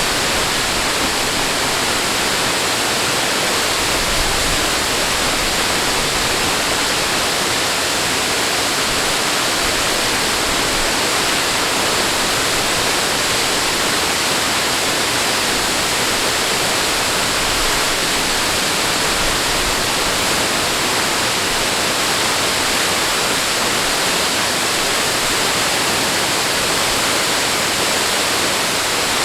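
Rushing water, a steady unbroken wash of noise with no surges or pauses.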